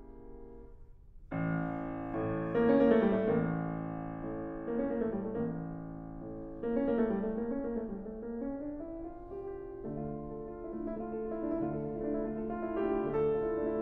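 Background piano music: held chords with a moving melodic line, a louder new phrase coming in about a second in.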